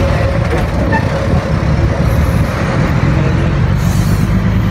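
Steady road traffic noise: the rumble of vehicles passing on a city street.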